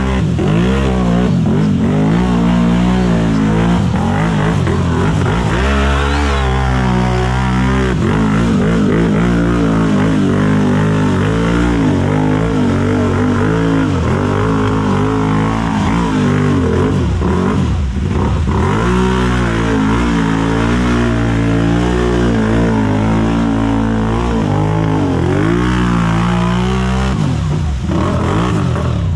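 Engine of a big-tire off-road racing machine revving hard on a mud-pit run, its pitch rising and falling again and again as the throttle is worked. It eases off slightly near the end.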